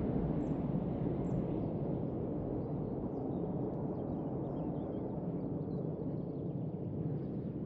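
Low, steady rumble of a Boeing 737-800 jet airliner's engines dying away slowly as the aircraft moves off after passing overhead on its landing approach. Faint bird chirps sound now and then above it.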